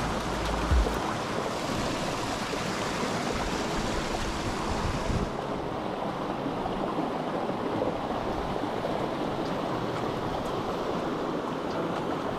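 Small rocky stream rushing over stones and a little waterfall: a steady water noise. Its hiss in the upper range drops away suddenly about five seconds in.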